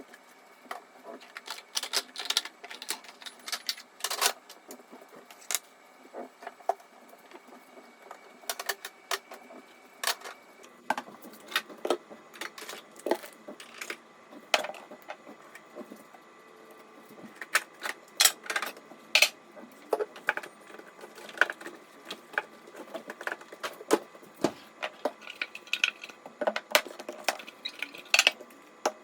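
Irregular clicks, knocks and clatter of containers and other small hard kitchen items being handled while a refrigerator is emptied and cleaned.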